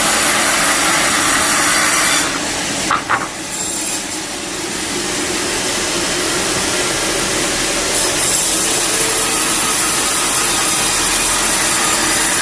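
A saw cutting through wood to square up a piece of timber, running continuously, with a brief letup about two seconds in before the cut picks up again.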